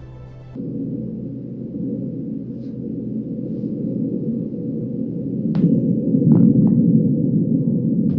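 Muffled low rumble of Martian wind, recorded by the Perseverance rover's SuperCam microphone with the mast still stowed on the deck, so it sounds like listening to a seashell. It starts about half a second in and grows louder after about five seconds, with a few faint clicks.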